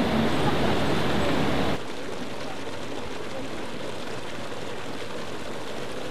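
Rushing white water with a rescue jet ski's engine running underneath; it cuts off abruptly about two seconds in, giving way to a quieter steady hiss of water churned by the jet ski's pump.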